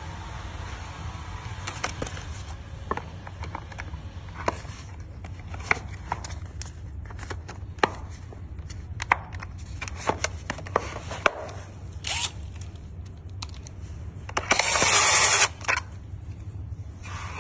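Hard plastic battery case being handled and closed over a replacement battery and its wiring: scattered clicks, knocks and light rattles of the plastic parts. Near the end comes a louder scrape lasting about a second.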